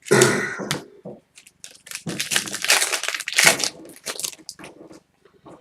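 Foil trading-card pack wrapper crinkling and tearing in a run of irregular crackles as a pack is ripped open, dying away near the end.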